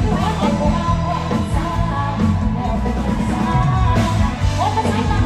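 Live band music with singing over it, played loud through a PA system.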